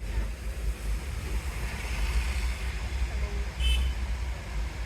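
A motor vehicle running, with a steady low rumble and road noise. A brief high-pitched sound comes about three and a half seconds in.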